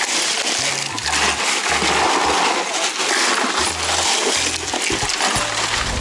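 Ice cubes clattering and clinking as hands dig through and pack them into a plastic cooler. Background music with a bass line plays under it.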